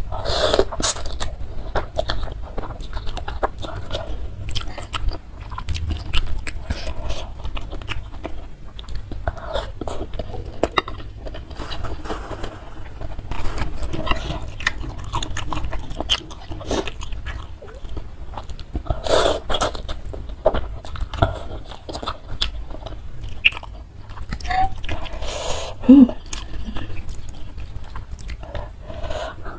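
Close-miked mukbang eating sounds: a person slurping Samyang instant noodles in spicy broth and chewing with wet mouth clicks. There are longer slurps about half a second in and again around the middle, over a steady low hum.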